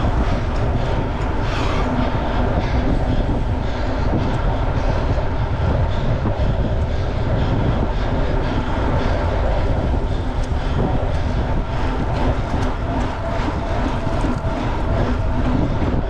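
Steady wind rush on the microphone with the rattle and tyre noise of an aluminium Specialized Crux gravel bike ridden fast over gravel, a constant run of small clicks and knocks.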